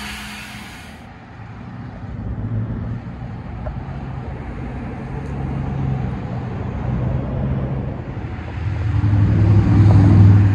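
Road traffic on a busy six-lane highway: a steady rumble of passing cars, with one vehicle growing louder and passing close near the end.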